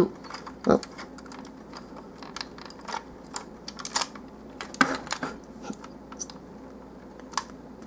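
Hard plastic clicks and rattles of a Transformers Long Haul action figure being handled, its joints and wheel section shifting, and its wheels coming loose from their tabs. The clicks come at irregular intervals, the loudest a short knock just under a second in.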